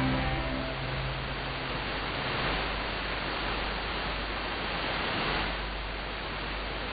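Shortwave AM reception through a web SDR: a stretch of hiss and static between pieces of music from a pirate station on 5835 kHz. The last held notes of the previous music fade out within the first two seconds.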